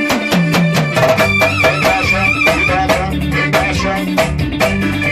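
Pagode baiano band playing an instrumental passage: a fast, steady percussion beat over bass notes, with a high held melody line wavering above.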